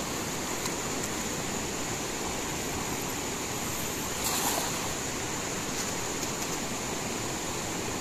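Shallow rocky river running steadily over rocks, with a brief splash about four seconds in as a thrown cast net lands on the water.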